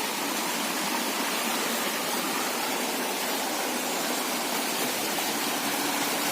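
Steady rush of falling water from a rocky waterfall, an even hiss with no breaks.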